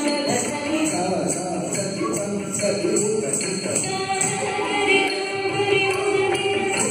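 Indian classical dance music: a melody with held, bending notes over a steady beat of high jingling strokes, like small bells or cymbals.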